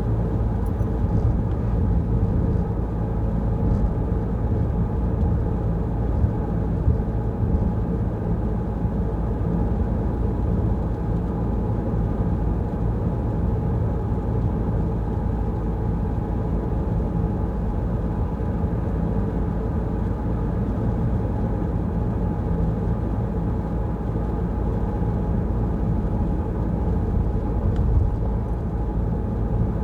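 Peugeot Rifter driving at a steady pace: a continuous low engine drone and tyre rumble that stays level, with a few faint ticks.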